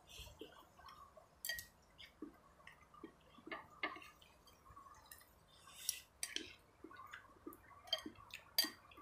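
Quiet eating sounds: a metal spoon clinking and scraping in a ceramic bowl of noodle soup, with chewing in between. Short, irregular clicks, a few a second.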